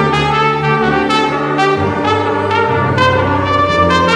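Live ensemble music led by a trumpet playing the melody, with violins and a low bass line whose notes change about once a second.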